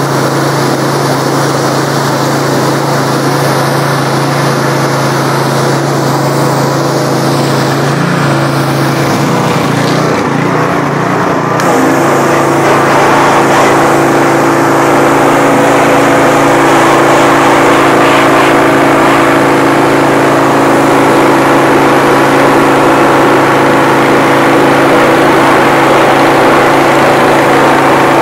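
Gas pressure washer's small engine running steadily under load, with the hiss of the wand's high-pressure water spray. About ten seconds in, the engine's tone changes and the sound gets a little louder.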